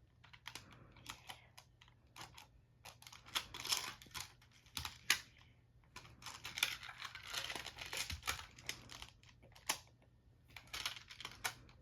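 Plastic magnetic building tiles clicking and clacking as they are handled and snapped together edge to edge: a quick, irregular run of light clicks with a few louder snaps.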